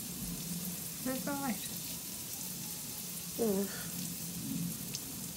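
Effervescent tablets fizzing in homemade oil-and-water lava lamps: a steady fizz of rising bubbles. Two short vocal sounds come about a second and about three and a half seconds in.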